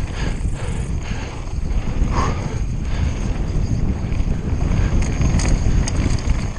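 Wind buffeting an action camera's microphone over the rumble of a Conway WME mountain bike's tyres on a rough downhill trail, with a few sharp clacks of the bike rattling about five seconds in.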